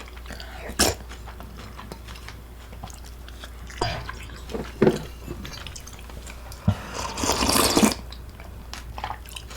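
Close-miked eating sounds: chewing and biting, with a few sharp bites and a louder stretch of chewing about seven seconds in.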